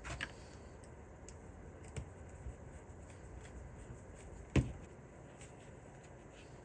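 A few light knocks and clicks of small objects being handled on a workbench, with one louder, sharp knock about four and a half seconds in.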